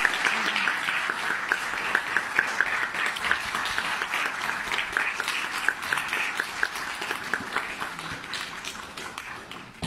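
Audience applauding, many hands clapping at once, dying away over the last couple of seconds.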